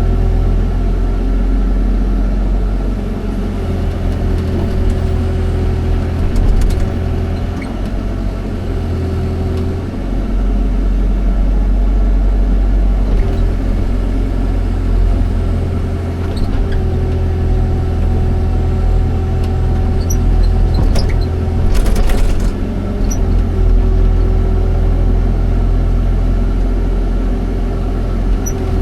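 Excavator's diesel engine running with a steady low rumble, its sound shifting every few seconds as the load changes. There is a short rattle about three quarters of the way through.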